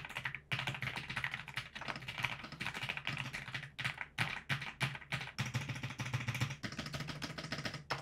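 AULA F87 mechanical keyboard with PBT double-shot Cherry-profile keycaps being typed on: a dense, fast run of key clacks with a couple of brief pauses. The typing lacks the high-pitched sound that keycap interference on its south-facing switches would give.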